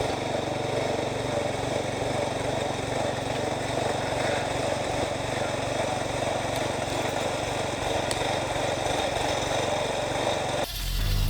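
Small engine of a towable backhoe running steadily while digging, then a sudden cut to music with a heavy beat shortly before the end.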